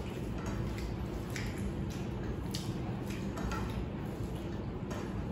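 Soft, wet squishing of fingers kneading and mixing rice with egg curry on plates as people eat by hand, with a few faint clicks.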